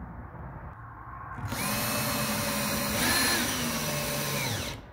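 Cordless battery drill running with its bit in a timber board. The motor whine starts about a second and a half in, climbs in pitch briefly near the middle, then holds steady and stops just before the end.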